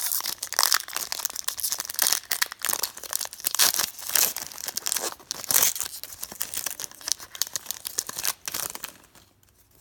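Foil trading-card pack wrapper being torn open and crinkled by hand, a dense crackling that dies away near the end.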